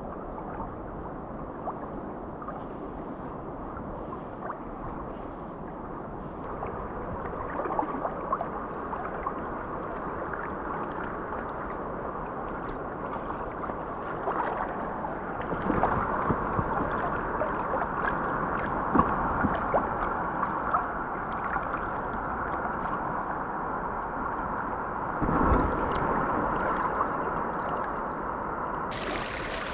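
Mountain stream water flowing and gurgling steadily, swelling a little louder at times, with a sudden change in the sound shortly before the end.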